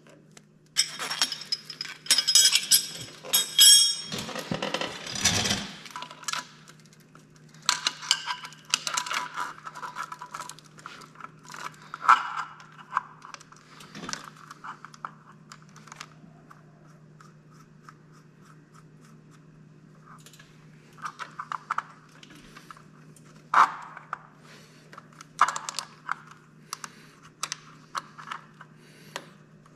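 Fuel-line hose-end fitting being threaded together with a wrench and fitted on the engine: metal clinks, scrapes and rasping clicks, busiest in the first six seconds, then scattered clinks and taps. A low steady hum runs underneath.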